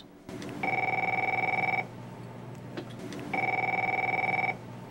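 Desk telephone ringing twice, each ring a trilling two-tone electronic warble lasting about a second, with a pause of about a second and a half between them.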